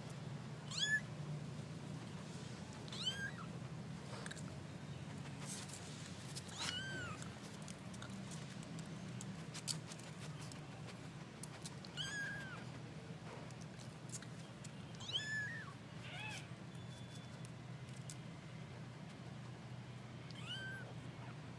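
Kitten mewing: about seven short, high-pitched mews, each rising and falling in pitch, spaced a few seconds apart, over a faint steady low hum.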